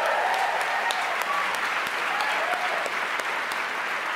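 Large indoor audience applauding, a steady wash of clapping that eases off slightly toward the end.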